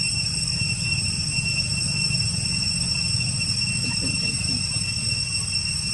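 Steady outdoor ambience: an even, high-pitched insect drone over a constant low rumble, with a few faint brief sounds about four seconds in.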